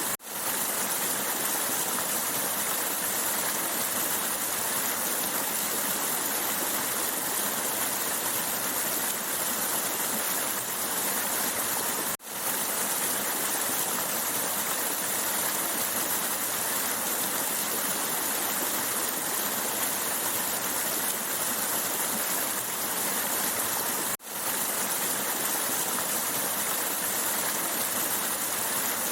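Steady rushing of a stream, running water with no pause in its flow. Twice it cuts out for a moment and fades back in, about twelve seconds apart, as a looped recording restarts.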